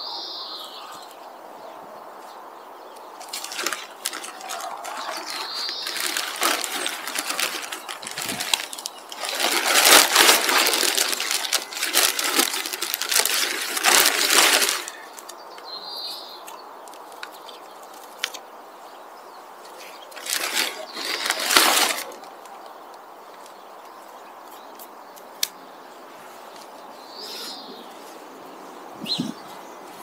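Rustling of a plastic bag and a bundle of bare-root strawberry plants being handled. It comes in bursts, a long loud stretch in the first half and a shorter one later. A bird chirps briefly a few times.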